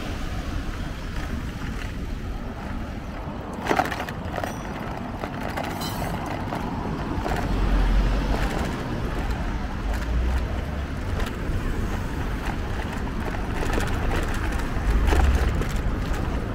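Wind rushing over the microphone during a bicycle ride: a steady noise with louder low gusts about halfway through and near the end, and a sharp click about four seconds in.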